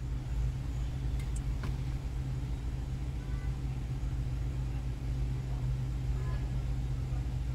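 Car engine idling, a steady low hum, with a few faint clicks about a second in.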